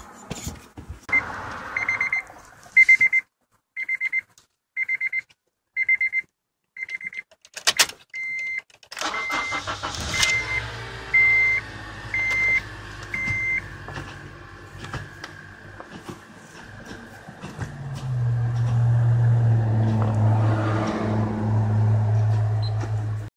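Honda dashboard warning chime beeping about once a second, stopping about halfway through, as the engine starts and runs. A deeper steady hum comes in about three-quarters of the way through.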